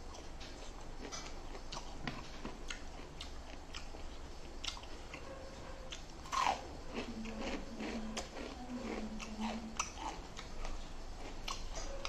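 Close-up mouth sounds of a person eating: repeated bites and chewing, with crunchy, clicky bites.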